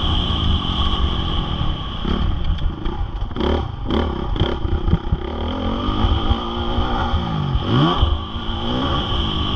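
Honda CRF450R single-cylinder four-stroke motocross bike being ridden hard, the engine revving up and down as the throttle opens and closes. A short run of knocks and clatter comes near the middle.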